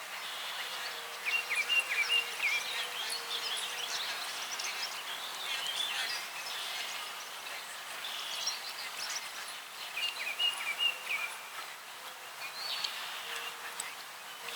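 Songbirds chirping and singing over a steady outdoor hiss. One quick chirping phrase is heard twice, about a second in and again about ten seconds in.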